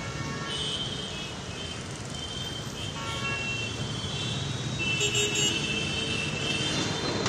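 Busy street traffic with vehicle horns honking several times.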